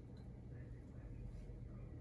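Quiet room tone: a steady low hum with a few faint, soft handling noises.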